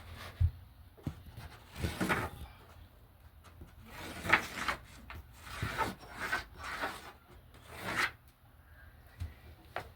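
Wood scraping and rubbing in a series of separate strokes, with a sharp knock about half a second in.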